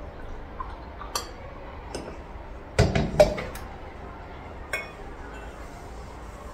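Tea glasses and dishes clinking and knocking as tea is handled and served: a few light clinks, then a cluster of louder knocks and clinks about three seconds in, and one more near five seconds.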